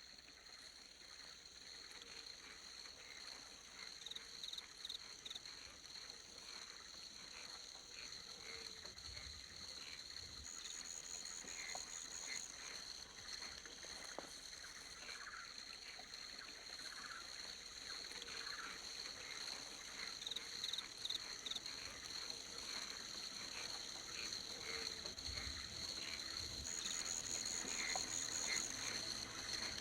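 Tropical forest ambience: insects trill in two steady high tones, with many short chirping calls scattered over them. The whole sound fades in gradually.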